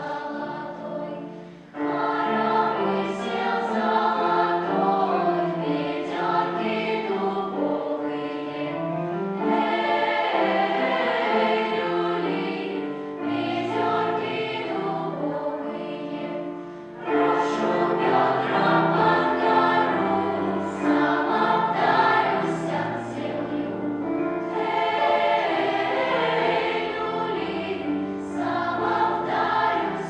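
Children's choir singing together in a Russian suite, with short breaks between phrases about two seconds in and again a little past halfway.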